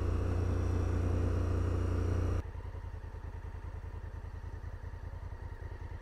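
Honda Africa Twin's parallel-twin engine running steadily at road speed. About two and a half seconds in it drops abruptly quieter, to a low, even pulsing.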